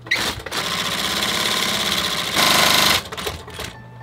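Myungsung industrial sewing machine stitching a leather boot upper. It runs steadily for about two seconds, runs louder for the last half second, then stops about three seconds in.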